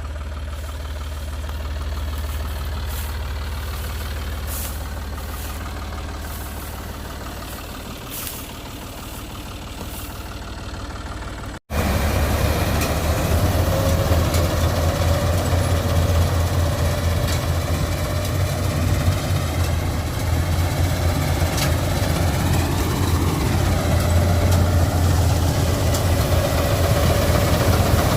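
Rice harvester's engine running steadily with a deep hum. It breaks off for an instant about twelve seconds in and comes back louder.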